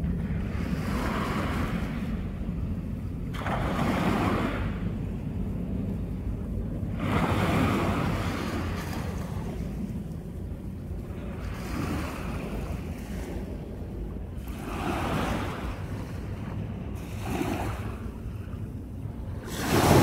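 Small waves breaking and washing up a sandy shore, a hissing swell every three to four seconds, over a steady low rumble of wind on the microphone.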